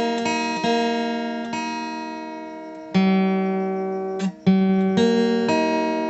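Background music on acoustic guitar: plucked notes and chords that ring and fade, with new chords struck about three seconds in and again a moment later.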